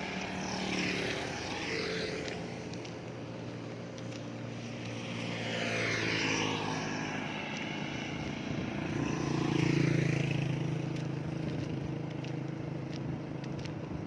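Motor vehicles driving past on a road one after another, about three passes, each one's engine and road noise swelling and fading away, with the loudest pass about two-thirds of the way in.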